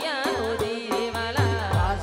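Live Gujarati folk-devotional stage music: a woman singing a wavering, ornamented melody into a microphone over a regular drum beat.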